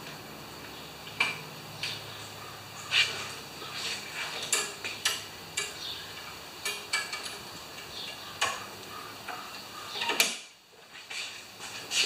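Light metallic clicks, clinks and knocks of a lawn mower's stop cable and handle hardware being handled and adjusted, over a faint low hum that cuts off suddenly about ten seconds in.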